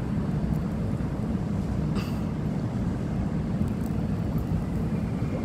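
Steady low outdoor rumble, with a single short click about two seconds in.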